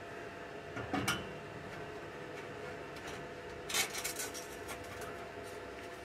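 A few light metallic clinks and scrapes of 2.5-inch exhaust tubing being slid into place during a mock-up: a couple about a second in and a short cluster around four seconds in, over a faint steady hum.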